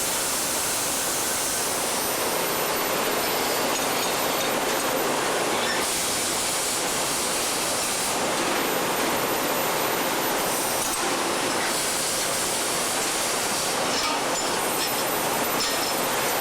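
Welding arc on an exhaust pipe, a steady hissing crackle that shifts slightly in tone every few seconds, with a faint very high whine coming and going.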